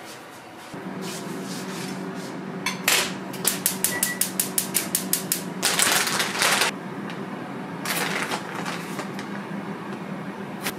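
Kitchen sounds over a steady low hum: a quick run of about a dozen sharp clicks, roughly five a second, then the crinkle of a foil-lined resealable spice bag being opened, with another brief crinkle a couple of seconds later.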